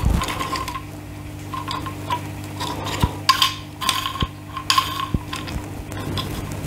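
Black plastic hose valves of a canister aquarium filter being handled and turned in the hands, with irregular clicks, light knocks and rubbing of hard plastic. A low steady hum runs underneath.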